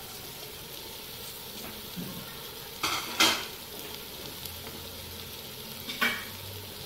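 Chana dal and karela masala sizzling gently in a cooking pot, with a few brief clatters about three seconds in and again near the end.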